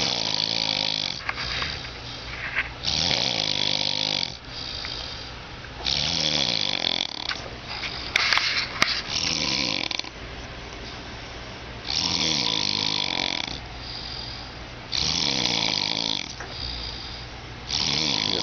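A man snoring in deep sleep: loud, rasping snores about a second long, coming roughly every three seconds, with a weaker stretch of a few seconds in the middle.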